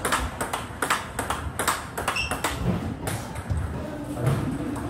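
Table tennis balls being struck with rubber paddles during backhand drive practice, a quick run of sharp clicks of ball on paddle and table. The run thins out after about two and a half seconds to a few scattered clicks.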